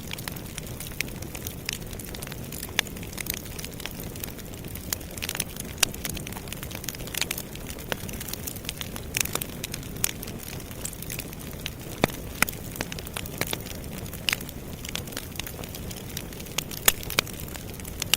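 Campfire burning: a steady low rush of flame with irregular sharp crackles and pops of burning wood, several a second, a few standing out louder.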